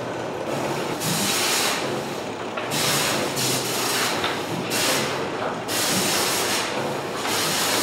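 Fish-processing line running: steady machinery and conveyor noise with a hiss that swells and fades about once a second.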